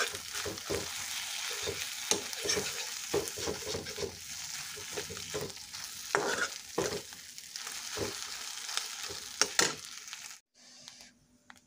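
Fish roe and onions sizzling in oil in a kadai while a metal spatula stirs and scrapes the pan in frequent short strokes. The sound cuts off suddenly near the end.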